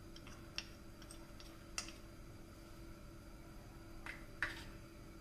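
A handful of light, sharp clicks and taps of a steel spoon against a plastic bowl and the pan rim as grated ginger is scraped into a wok, over a faint steady hum.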